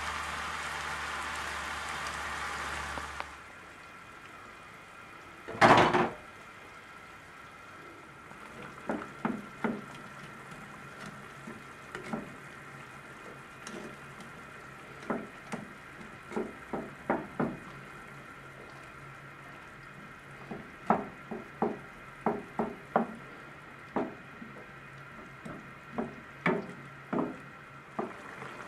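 Vegetables and frozen tomato sizzling in a frying pan, cut off abruptly about three seconds in. Then one loud knock about six seconds in, followed by a wooden spatula knocking against the pan in irregular clusters as the tomato soup is stirred.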